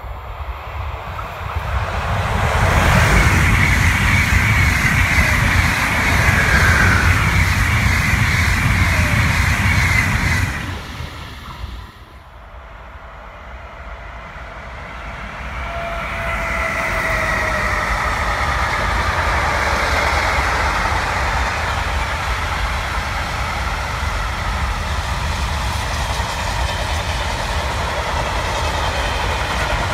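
A train passes close by at speed and cuts off abruptly about eleven seconds in. Then a freight train hauled by a Siemens Vectron (class 193) electric locomotive rolls past, its wagons' wheels running steadily over the rails with a faint whine.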